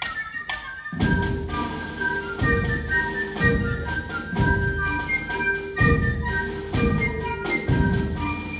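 Drum and fife corps playing: fifes carry a held melody over drums and mallet percussion. From about a second in, low drum strokes fall roughly once a second.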